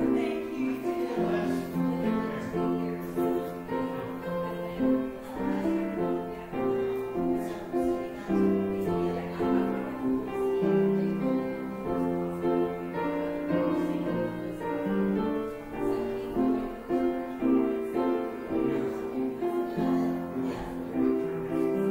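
Slow instrumental keyboard music in held chords, played as a church postlude after the closing benediction.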